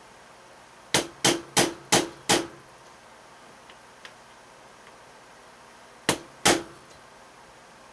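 Hammer tapping a punch to drive a roll pin deeper into a Magpul CTR stock: five quick sharp taps about a second in, then two more near the end.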